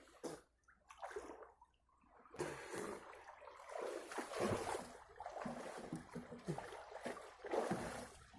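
Seawater splashing and sloshing around a swimmer diving and surfacing: a quieter first two seconds, then irregular splashes.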